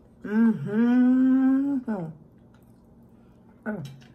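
A woman hums a long, closed-mouth "mmm" of enjoyment while eating. The hum holds a nearly steady pitch after a quick dip at the start. A second short "mm" falls in pitch near the end.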